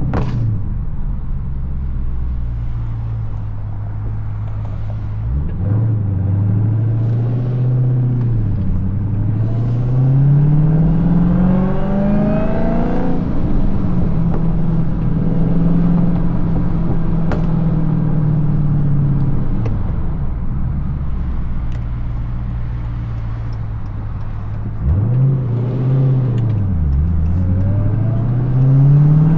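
Supercharged Hemi V8 of a Dodge Challenger SRT Hellcat with a six-speed manual, heard loud through its exhaust on the road. The revs climb under acceleration, hold steady for a few seconds, drop off, and swing sharply up and down twice, about five seconds in and near the end, before climbing again.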